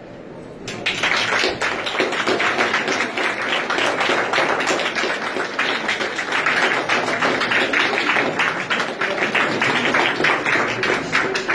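Small crowd of people applauding, a dense patter of hand claps that starts about a second in and carries on until near the end.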